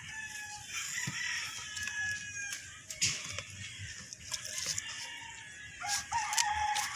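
Birds calling in long, held calls, with a new call starting about six seconds in.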